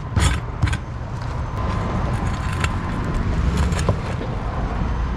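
Truck engine running with a low, steady rumble as the truck is driven onto an ATV tire to break its bead, with a few sharp knocks and clanks, the loudest ones in the first second.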